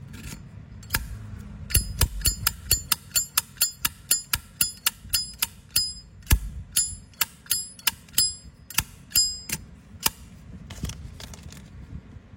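Brass Zippo-style lighter being clicked open and shut over and over, about two sharp metallic clicks a second. Each click rings on with a bright, high ping from the metal case. The clicking runs from about two seconds in to about ten seconds in.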